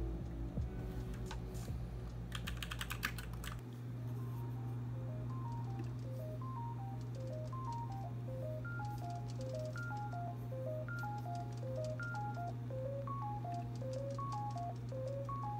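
Typing on an RK61 mechanical keyboard, quick clicking keystrokes over soft background music. About four seconds in, the typing stops and only the music goes on: short beeping notes stepping up and down over a steady low hum.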